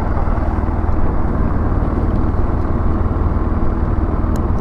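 Motorcycle engine idling steadily close to the microphone, a continuous low running sound with no revving.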